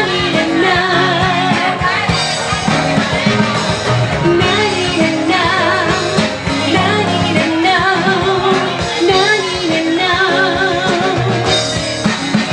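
Pop song music with a steady beat and a wavering sung melody.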